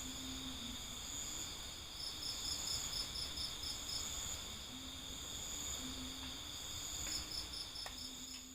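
Night chorus of crickets: several steady high trills overlapping, with one cricket's pulsed chirping coming in bursts of rapid chirps, a couple of times.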